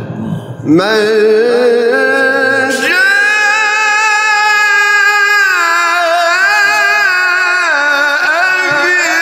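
A man's voice in melismatic Quranic recitation. It slides up about a second in, then holds one long ornamented note that steps down in pitch twice.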